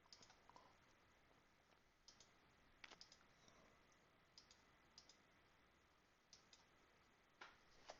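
Near silence broken by several faint, irregular clicks of a computer pointing device as a menu is opened and an item chosen.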